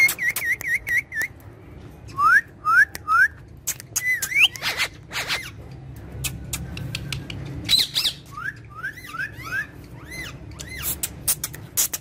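A parakeet whistling a series of short notes: a quick run of wavy notes at the start, then groups of three and four rising whistles and a few arched ones, with sharp clicks in between.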